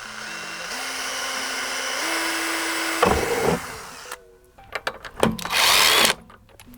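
Power drill drilling out pop rivets from car body panel metal: one steady run of about three seconds, then a second, louder burst near the end.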